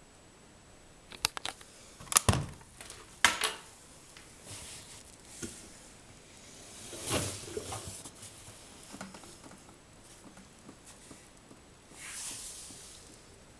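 A few sharp clicks and clunks from the Beko front-loading washing machine's door and controls about two and three seconds in, as the door is opened at the end of the cycle. After that, soft rustling and shuffling of wet laundry being pulled from the drum, with louder handling about seven and twelve seconds in.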